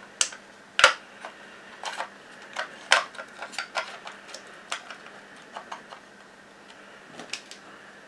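Irregular clicks and taps of hard plastic: the robot vacuum's suction-fan motor and its circuit board being handled and pressed back into the plastic fan housing, with one sharper click about a second in.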